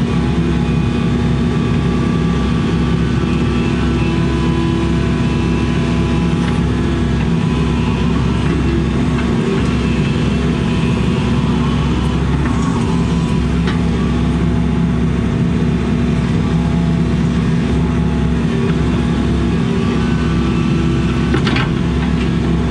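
Excavator's diesel engine running steadily at working speed as the bucket digs a trench, heard from inside the cab.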